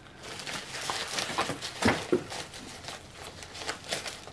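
Paper and packaging rustling and crinkling as they are handled, with a few sharper ticks and taps, the loudest about two seconds in.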